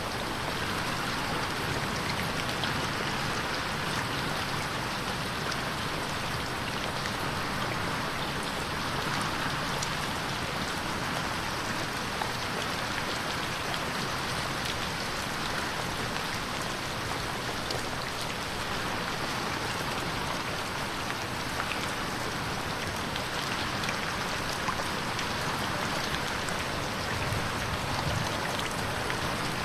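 Steady rain pattering against a window pane, an even hiss of drops with scattered small taps, moving between left and right as 8D audio.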